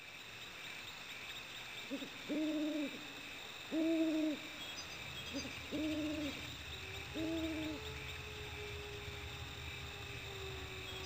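An owl hooting, six hoots in about six seconds, some in short-then-long pairs, over a steady high chirring of night insects. A faint steady tone comes in about two-thirds of the way through.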